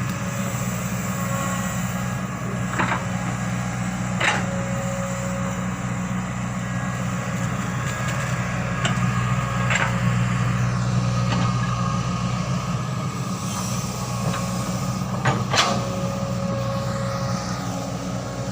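Excavator's diesel engine running steadily, with a few sharp knocks scattered through.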